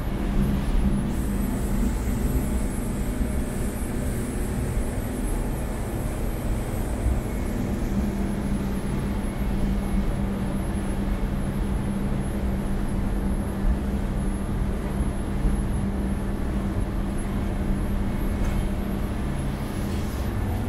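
Twin Cummins marine diesel engines of a 50-foot motor yacht running steadily at high cruise, near 2,800 rpm, with wind and water rushing past the hull.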